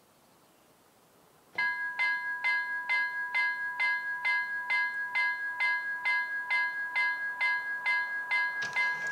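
Railroad level-crossing bell starts ringing about a second and a half in, a steady ding repeated about twice a second, as the crossing activates for an approaching train. Near the end a second ringing joins it, out of step with the first.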